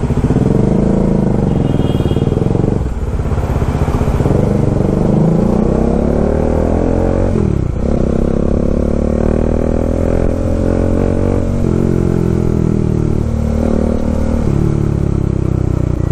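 Kawasaki Dominar 400's single-cylinder engine pulling hard and accelerating, its pitch climbing and then dropping back at each gear change, several times over. Wind rushes past throughout.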